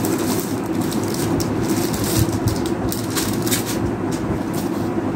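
Packaging rustling and crinkling, with short sharp clicks, as a new keyboard is unpacked from its box and its manual handled, over a steady background hum.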